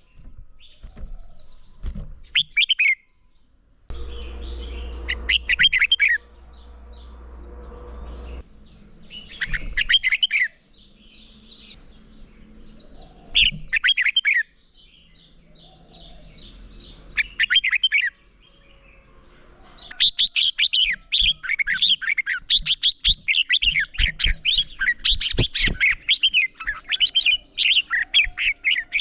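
Red-whiskered bulbuls singing competitively in short, bright warbled phrases a few seconds apart. From about twenty seconds in, the song thickens into a dense, near-continuous run of rapid notes.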